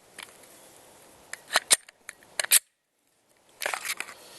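A few sharp clicks with rustling and crunching handling noise, broken by a brief dead gap.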